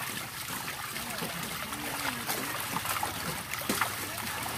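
Water splashing and trickling as a plastic basket is scooped through a packed mass of catfish and lifted out, water pouring through its mesh, with a sharper splash a little before the end.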